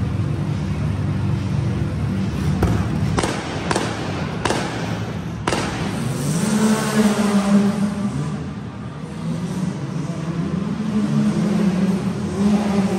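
Off-road vehicle engines running and revving, with about five sharp bangs between roughly two and a half and five and a half seconds in.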